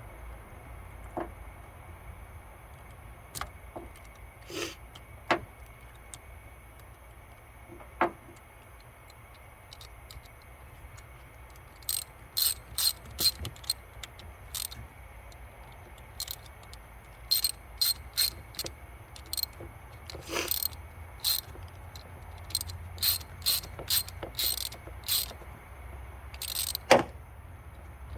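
Hand tools clicking and tapping on metal during a battery terminal repair, in short runs of sharp clicks, one louder knock near the end, over a steady low rumble.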